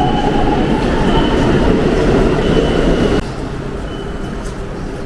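Train running, a steady loud rumble with a faint high squeal coming and going; the noise drops abruptly to a quieter steady level about three seconds in.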